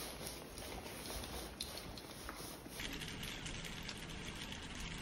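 A small dog's claws and a person's footsteps making faint clicks on a tiled floor. About three seconds in, this gives way to a kitchen tap running a steady stream of water into a colander of salad greens.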